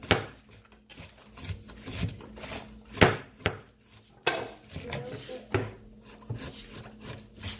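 Large kitchen knife shredding cabbage on a wooden cutting board: irregular knocks of the blade against the board, about one or two a second, the loudest about three seconds in.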